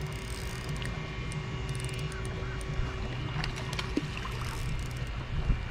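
Spinning reel being cranked in with a fish on, a faint steady whir that stops about four seconds in, over a steady low hum.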